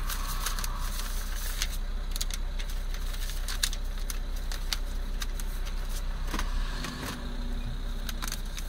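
A van's engine idling with a steady low hum, with scattered light clicks and rattles throughout.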